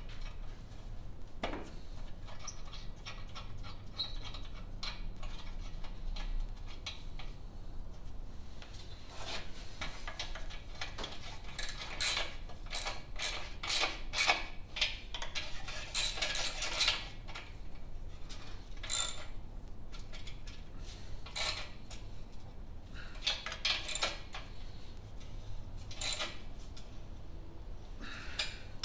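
Socket ratchet clicking in short runs and metal tools clinking as bolts on an engine's muffler bracket are worked, over a steady low hum.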